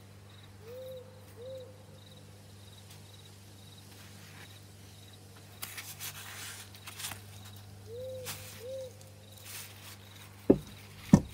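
A few short scraping strokes, then two sharp knocks near the end, over a steady low hum and faint, evenly repeating chirps.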